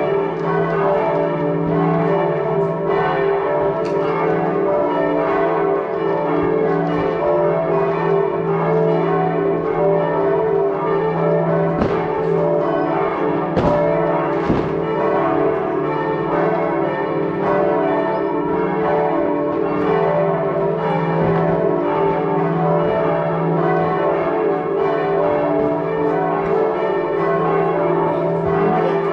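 Several church bells pealing together without a break, ringing in the New Year. A few sharp firework bangs cut through near the middle.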